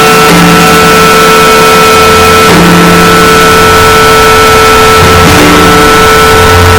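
Harsh noise music: a loud, heavily distorted wall of noise with steady high held tones over low droning layers that shift about every two to three seconds.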